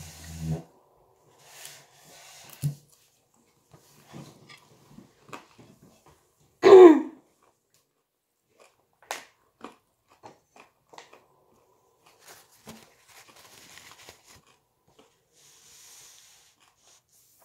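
Small clicks and knocks of cutlery and a plate on a table as a meal is begun. About seven seconds in comes one loud, short squeal that falls in pitch.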